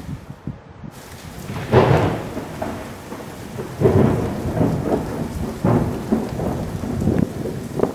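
Thunder from an approaching thunderstorm, rumbling in irregular rolls mixed with gusts of wind on the microphone; the loudest surges come about two and four seconds in.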